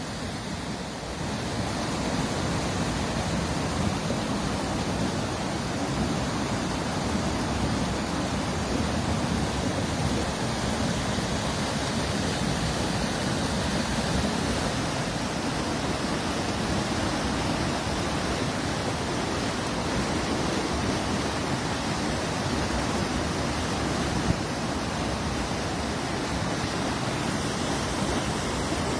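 River water rushing steadily, a continuous even hiss and rumble with no breaks.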